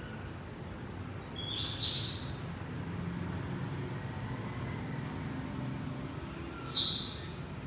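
A young pet monkey gives two short, high-pitched squeals that rise in pitch, about five seconds apart, over a steady low background hum.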